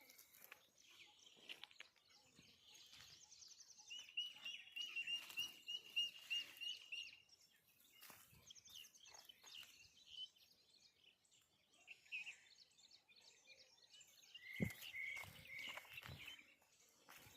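Faint bird calls: quick series of repeated high, clear notes, one run a few seconds in and another near the end, with scattered higher chirps between. A soft thump sounds about two-thirds of the way through.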